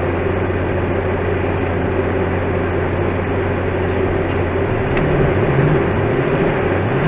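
Vehicle engine running with a steady low drone, its pitch rising briefly near the end.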